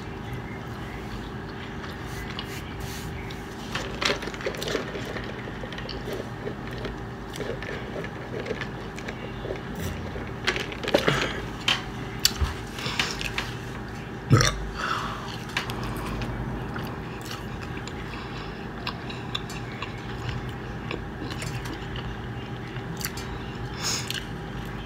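Close-up eating sounds of a person chewing and biting pizza, with wet mouth noises and a burp partway through. A steady background hum runs underneath.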